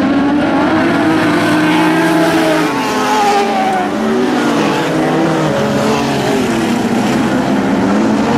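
Several Lightning Sprint cars racing, their engine notes overlapping and rising and falling in pitch as the drivers lift and accelerate through the turns.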